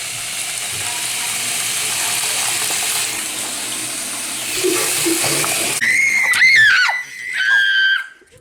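Tap water running into a bathroom sink as a steady rush. About six seconds in, it cuts abruptly to a high, wavering squeal that lasts about two seconds.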